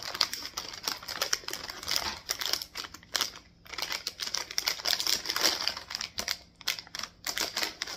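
Plastic snack wrapper crinkling irregularly as it is handled and turned over, with a few brief pauses.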